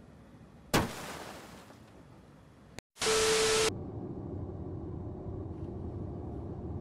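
A sharp crash about a second in that fades away over a couple of seconds. After a brief dropout comes a short burst of loud hiss with a steady tone, then the low steady road rumble of a car driving, heard from inside the cab.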